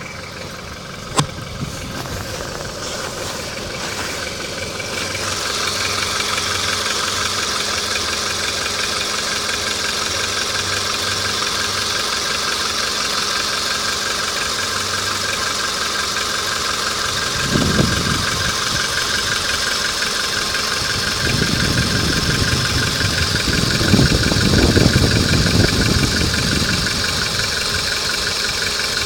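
Volkswagen Polo engine idling hot with a fast rhythmic knock, the hot-engine knock the owner is showing. A sharp click about a second in, the running grows louder about five seconds in, and low rumbling swells come through in the second half.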